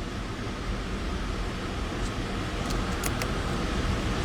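Steady low rumble and hiss of car cabin road noise, with a few faint clicks about two to three seconds in.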